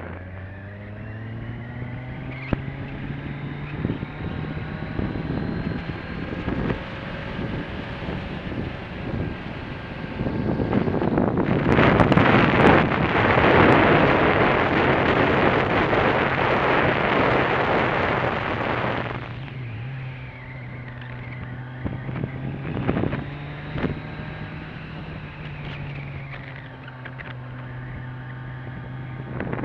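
Motorcycle engine running under way, its pitch rising as it pulls through the gears at the start and again near the end. From about eleven seconds in, a loud rush of wind on the microphone covers the engine for some eight seconds.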